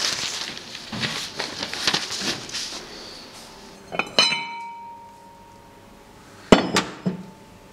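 White ceramic bowls handled and knocked together: shuffling and scraping, then two sharp clinks about four seconds in with a ringing tone that lingers, and two heavier knocks near the end.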